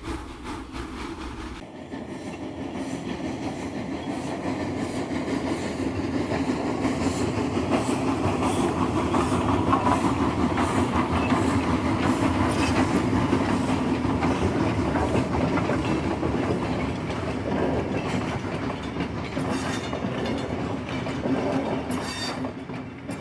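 A train running along the track, its wheels clicking over the rail joints. The sound changes abruptly about two seconds in, swells over the next several seconds, and eases slightly near the end.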